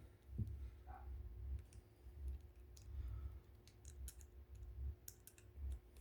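Faint, scattered clicks and light handling noise as the heater's plastic parts are handled, with a faint steady hum underneath.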